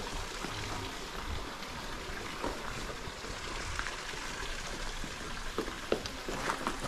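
Water in a temple garden stream running steadily.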